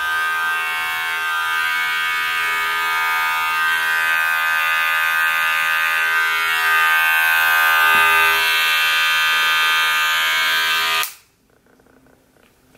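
Wahl Magic Clip Cordless hair clipper running steadily with an even buzz, sounding smooth and not noisy, then switched off suddenly about eleven seconds in.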